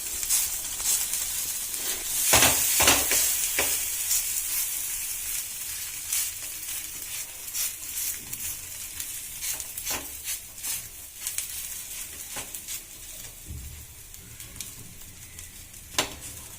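Oil sizzling in a hot pan as rava rotti (semolina flatbread) dough is patted out thin by hand on it, with scattered soft taps. The sizzle is loudest a couple of seconds in and slowly dies down.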